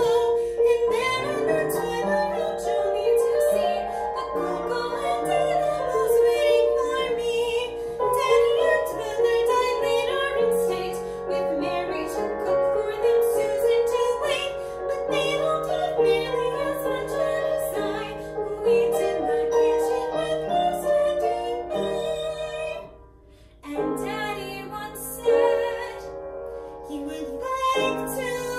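A woman singing a classical art song in a trained, operatic voice with piano accompaniment. The music drops away briefly about three quarters of the way through, then the singing and piano resume.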